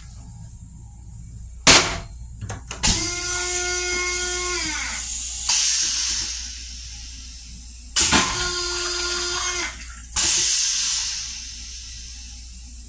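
Long Island Rail Road M7 railcar toilet flushing twice: each time a sharp click, then a steady mechanical whine for about two seconds that winds down in pitch, then a rushing hiss.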